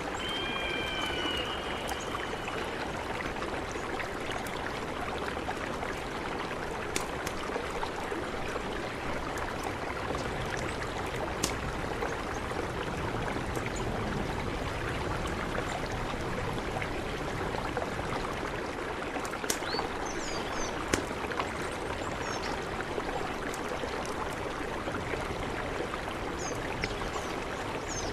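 Mountain river rushing steadily, with occasional small splashes. A short whistled call comes near the start, and a few faint high chirps come later.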